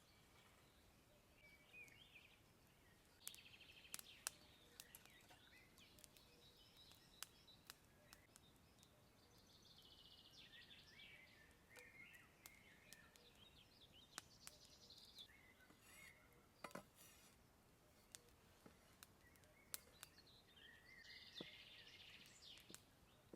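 Faint birdsong, with scattered light clicks and taps throughout.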